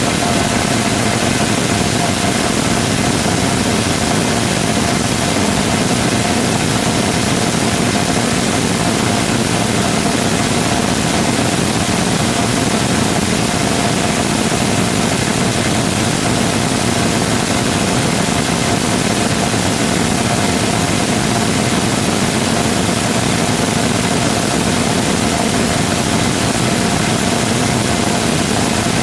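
Full-scale 3D-printed rotating detonation rocket engine combustor firing on a test stand: a loud, steady roar with a steady whine running through it.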